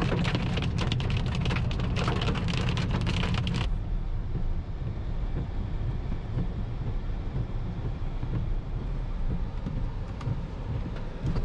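Hailstones and rain pelting a car's roof and windshield, a dense patter of sharp pings over the car's low rumble. The pelting stops abruptly about four seconds in, leaving only the steady low rumble of the car driving.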